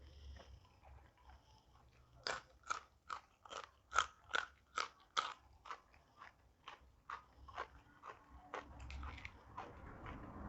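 Close-up chewing of crunchy raw food: steady crunches at about two to three a second, starting about two seconds in, loudest around the fourth second and fading away over the next few seconds.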